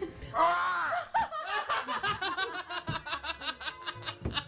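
Person laughing hard after a prank scare: a loud sliding vocal cry in the first second, then a long run of quick, high-pitched laughing bursts, about six or seven a second.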